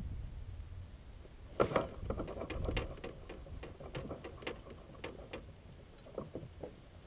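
Fishing tackle being handled in a plastic kayak: a run of irregular light clicks and knocks from the rod, baitcasting reel and hull starting about one and a half seconds in and lasting a few seconds, with a few more near the end.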